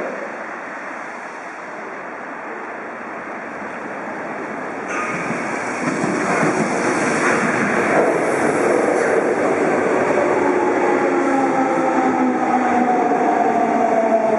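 Yokohama Municipal Subway Blue Line train running into the station. Its rolling noise grows louder about five seconds in, and from about eleven seconds a whine falls slowly in pitch as the train brakes to a stop.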